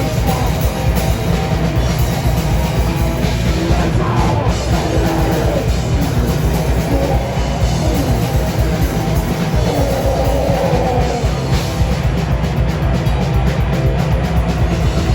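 A rock band playing loud, distorted music live, with a drum kit hit hard and fast. The drum strokes come thicker about three-quarters of the way through.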